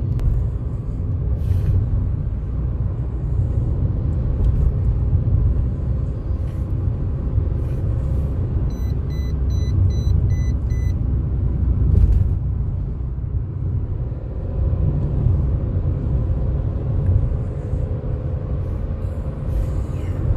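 Steady low rumble of a car driving, heard from inside the cabin. About halfway through, a run of six short high electronic beeps, about three a second.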